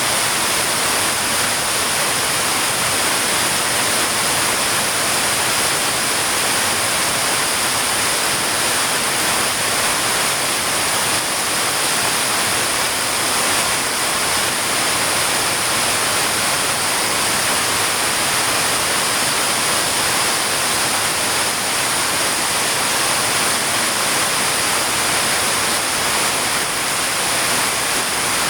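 Heavy rain falling in a steady, dense hiss that stays unchanged throughout, with no single drops or other sounds standing out.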